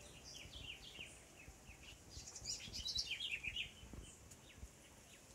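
Small birds chirping: a quick run of short, high, downward-sliding chirps, busiest around the middle, with a few soft low thumps.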